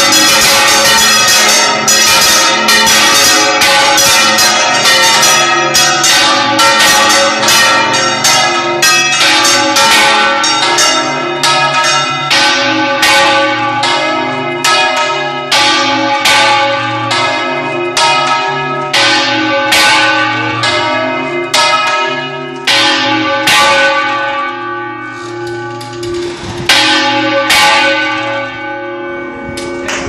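A peal of several church bells struck in quick, uneven succession, their ringing tones overlapping. The strikes space out and the sound fades somewhat toward the end, with one louder strike near the end.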